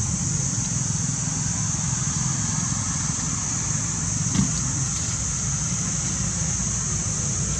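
Steady outdoor background noise: a low rumble under a constant high hiss, with one soft knock about four and a half seconds in.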